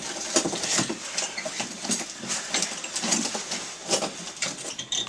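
Irregular rustling with scattered clicks and light knocks.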